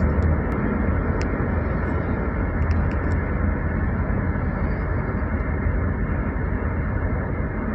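Heavy rain falling, a steady dense rush of noise with a deep low rumble underneath and a few faint ticks.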